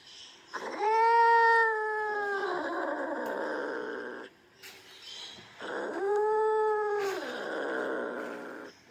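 Angry cat yowling twice: two long, drawn-out wailing calls, each dropping in pitch and trailing off into a rough growl. This is the threatening, territorial cry of a cat.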